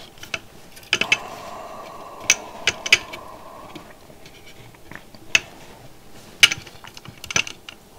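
Small sharp clicks and ticks of a circuit board and its component leads being handled and pressed by hand in a PCB holder, a few scattered taps with a soft rubbing noise for a couple of seconds about a second in.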